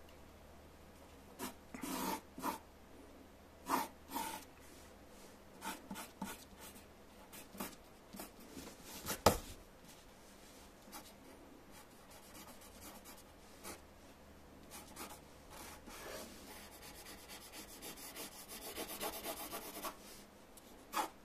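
Wooden pencil drawing on a sheet of paper: separate scratchy sketching strokes, a sharp tap about nine seconds in, and a run of quick back-and-forth strokes near the end.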